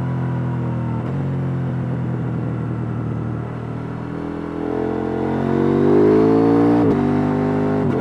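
KTM 890 Duke R's parallel-twin engine with its stock exhaust, heard on board: it runs steadily for about four seconds, then accelerates hard with a rising pitch, and the pitch breaks off briefly near the end.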